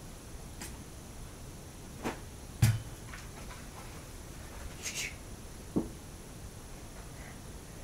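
A few scattered soft knocks and taps from toys being handled and a person shifting on a bed, over quiet room hiss; the loudest is a dull thump about two and a half seconds in.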